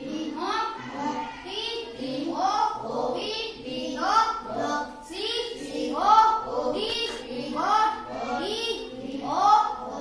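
A child's voice chanting a phonics drill of short 'o' words from a blackboard list in a sing-song, with a word or syllable about every half second in an even rhythm.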